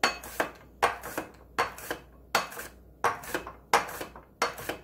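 Korean zucchini being sliced thin on a plastic mandoline slicer's steel blade: a steady rhythm of back-and-forth passes, each a pair of sharp scraping cuts, about six passes in all.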